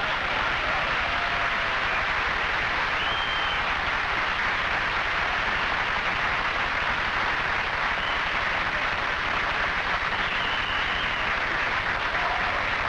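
Studio audience applauding steadily after a comedy routine.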